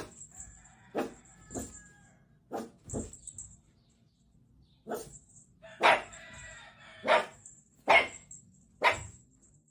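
A dog barking in short single barks, about ten of them at uneven intervals, with a pause of about a second and a half near the middle.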